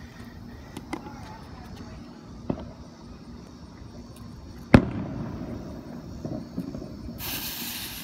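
Scattered firework bangs, with one sharp, loud bang near the middle. About seven seconds in, a Heavy Metal Fountain ground firework ignites and starts a steady high hiss as it sprays sparks.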